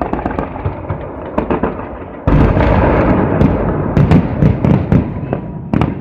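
Aerial firework shells bursting: a string of sharp separate bangs at first. A little over two seconds in, a much louder, dense volley of overlapping bursts begins and runs to near the end.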